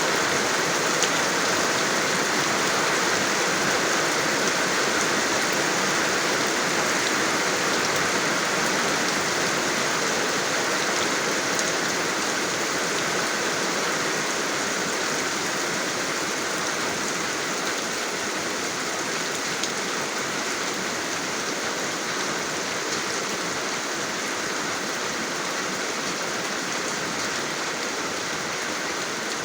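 Steady rain falling, a dense even hiss with scattered drop ticks, easing slightly in level over the stretch.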